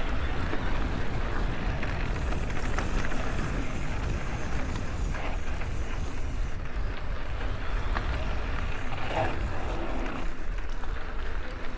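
Mountain bike riding over soft dirt singletrack: steady tyre and trail noise with a few light clicks, and wind buffeting the microphone.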